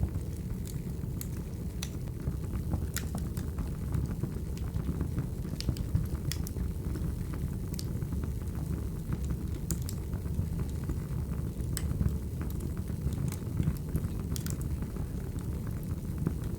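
Wood fire burning: a steady low rumble of flames with scattered sharp crackles and pops from the burning logs.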